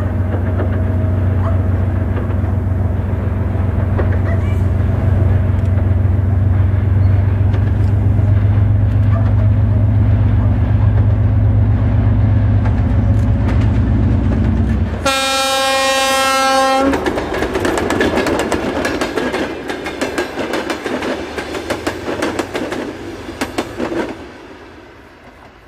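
3TE10M diesel locomotive's two-stroke diesel engines running hard with a loud, low drone. About fifteen seconds in, the drone stops abruptly and the locomotive's horn sounds one blast of about two seconds. Then wheels clatter over rail joints as the train's cars pass, dying away near the end.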